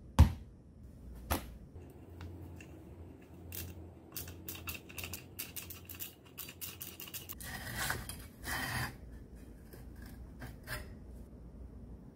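Metal clicks and rattles as the wheel-guard clamp on a large angle grinder's gearhead is worked loose, with a quick run of clicks in the middle. Then comes a scraping rasp as the steel guard is pulled off, and a few last clicks near the end.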